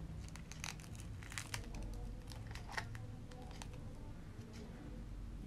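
Faint rustling and crinkling of a small glitter-paper pillow box wrapped in lace as fingers tie a metallic thread around it in a double knot. Scattered light clicks and rustles are busiest in the first half, then thin out.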